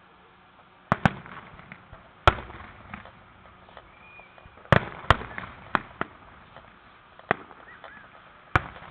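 Aerial fireworks shells bursting: about nine sharp bangs at uneven intervals, some followed closely by a second, with brief crackle and echo trailing after them.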